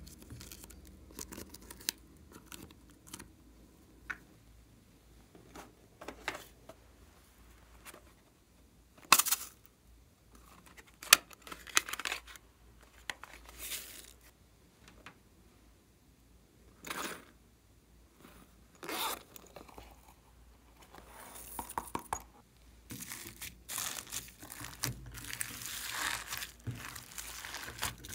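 Slime ASMR handling sounds: scattered crisp crackles and tearing scrapes as eyeshadow powder is broken over a tray of slime, glitter and foam pieces. In the last few seconds the crackling and crunching turn denser as hands start mixing the slime with its add-ins.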